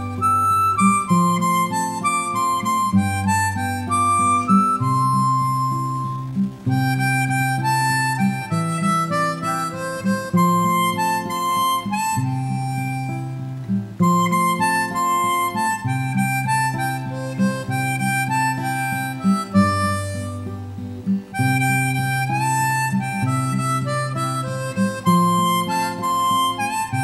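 Background music: a harmonica melody over acoustic guitar accompaniment.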